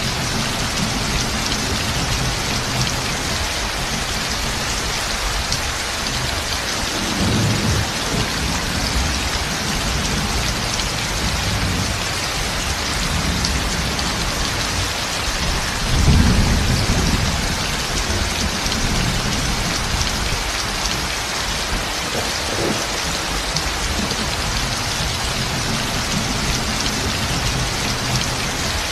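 Heavy rain pouring steadily onto a roof, a dense even hiss, with low thunder rumbling in under it about seven seconds in and again, louder, about sixteen seconds in.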